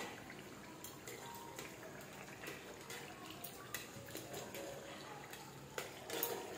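Faint clicks and soft wet squishing of a flat spatula mashing tomatoes and chicken in a kadai, with a couple of sharper taps near the end.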